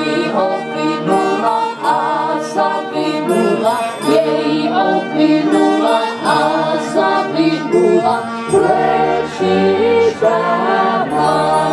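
Music: voices singing a melody over a steady held accompaniment.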